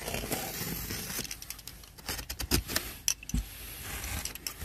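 A cardboard shipping box being handled and its flaps pulled open: cardboard rubbing and scraping, with several light knocks and rattles from the boxes packed inside.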